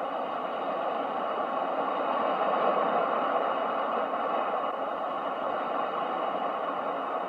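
Ocean waves washing in, a steady rush that swells to a peak a few seconds in and then slowly eases.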